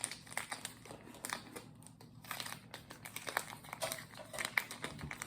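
MRE food packaging crinkling as it is handled, with short, irregular crackles all the way through.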